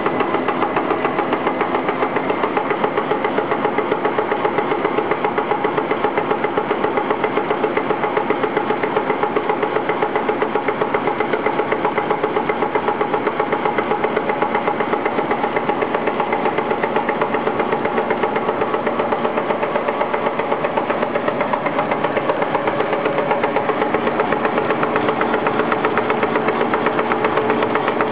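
SRD320 slitter rewinder with a die-cutting station running steadily, its motors and rollers humming with a fast, even pulse.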